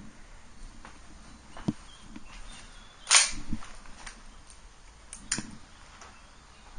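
Airsoft guns firing a few sharp single shots, the loudest about three seconds in and two more close together near the end.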